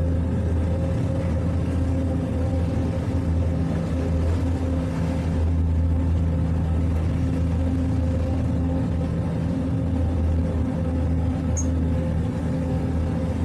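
Towboat's twin outboard motors running steadily at light throttle while pulling a yacht on a tow line, a constant low engine drone.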